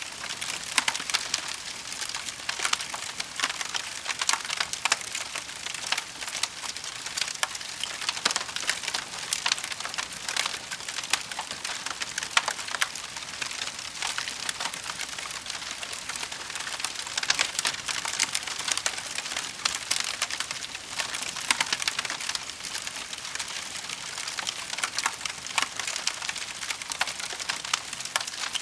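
Wood fire in a fireplace crackling steadily, with a dense run of small pops and snaps and now and then a louder one.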